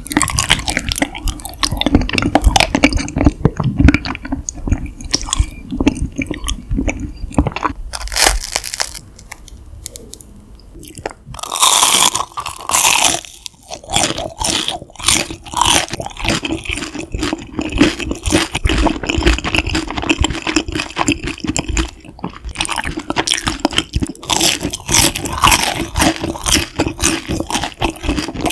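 Close-miked eating: chewing raw honeycomb with sticky, wet mouth sounds and repeated crunching bites of a crisp fried snack.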